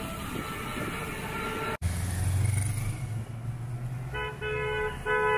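Background music cuts off abruptly; then a road-traffic rumble, and near the end a vehicle horn honking three short times in quick succession.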